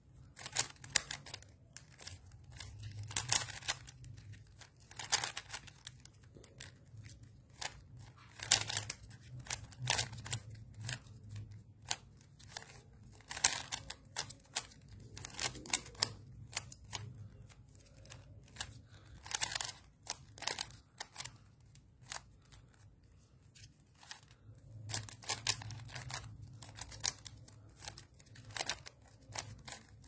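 Plastic stickerless 3x3 speed cube being turned fast by hand: quick runs of clicking and clacking as the layers snap round, with short pauses between runs.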